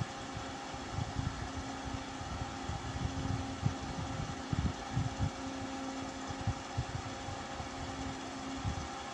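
Noctua NF-P12 redux 120 mm PC case fan running at medium speed: a steady whir with a low hum and several steady tones, over irregular low rumbling bumps.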